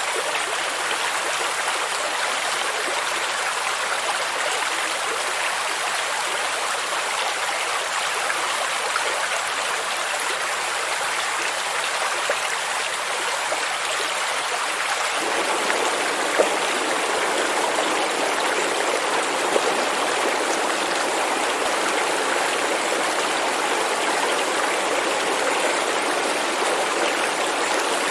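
Stream water rushing and babbling steadily. About halfway through the rush turns fuller and lower, and a few faint splashes stand out.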